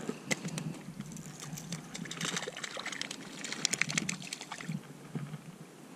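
Small clicks and ticks of fishing tackle being handled (pliers, lure and line), with a light trickle and slosh of lake water at the shore.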